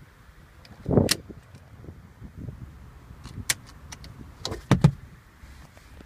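A car seat belt being handled: a thump with a sharp click about a second in, single clicks a little after three seconds, and a quick run of knocks and clicks near the end.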